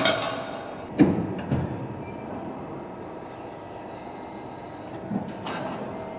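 Upstroke press brake running with a steady machine hum. Sharp metallic clanks come near the start and again about a second in, and a short rushing noise comes about five seconds in as sheet metal is handled at the tooling.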